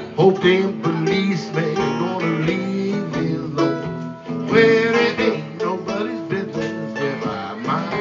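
Stratocaster-style electric guitar played through an amplifier: a lead line with bent, wavering notes.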